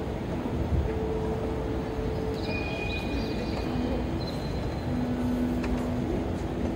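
Steady low rumble of a large train station's ambient noise, with a few faint, long-held tones over it.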